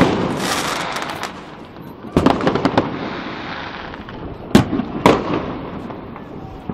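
New Year's fireworks going off across a city. A loud bang at the very start is followed by about a second of crackling, then a cluster of bangs about two seconds in, and two sharp bangs half a second apart a couple of seconds later, all over a steady wash of more distant explosions.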